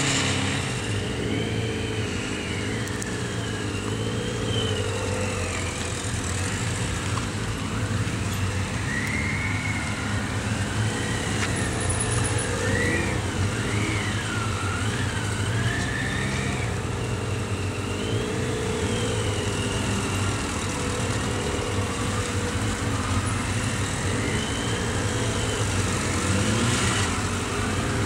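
Several motorcycles ridden slowly in a line through tight turns, their engines running at low revs, with the pitch rising and falling as the riders work the throttle.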